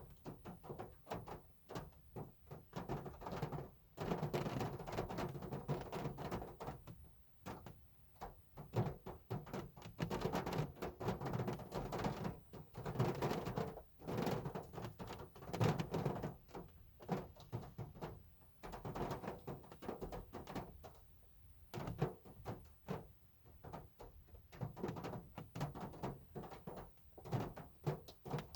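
Hard rain falling on a car, a dense, irregular patter of drops hitting the body that swells and eases every few seconds.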